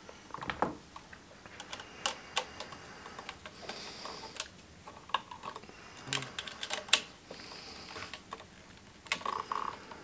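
Light, irregular clicks and taps of a plastic GFCI receptacle and its wiring being handled while a stripped wire is poked into the terminal.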